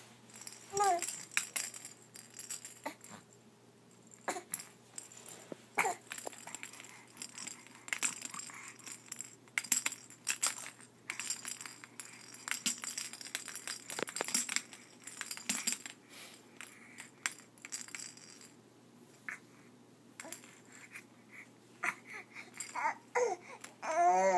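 Infant babbling in a few short bursts, with a longer run of squeals near the end, over frequent clicks and rattles of a plastic toy handled in the baby's hands.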